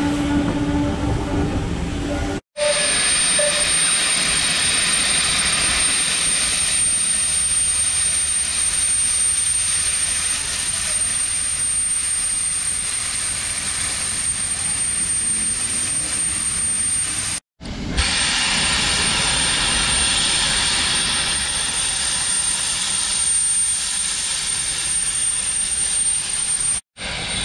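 Railway coaches rolling past for the first couple of seconds, then a steam locomotive blowing off steam: a loud, steady hiss with a thin, high, even tone on top. The hiss breaks off abruptly twice.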